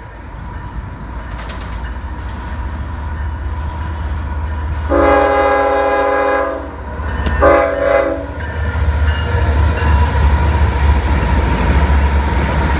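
Approaching CSX ES44AH diesel locomotive, its GE V12 diesel engine rumbling louder as it nears. About five seconds in its horn sounds one long blast, followed about a second later by a short one.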